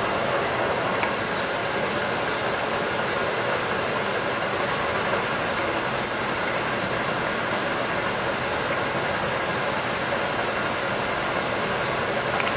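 Mori Seiki MH 2000G heavy engine lathe running under power, its geared headstock and feed gearing giving a steady mechanical whir, with the half nuts engaged on the lead screw.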